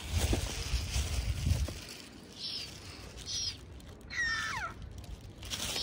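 A low rumble in the first two seconds, then two short high chirps and a bird call gliding down in pitch about four seconds in.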